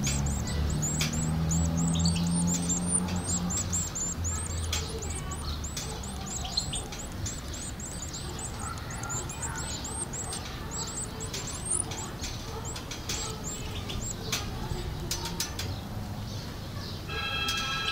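European goldfinch nestlings begging to be fed: a rapid stream of thin, high-pitched chirps, many a second, denser in the first half and thinning out later.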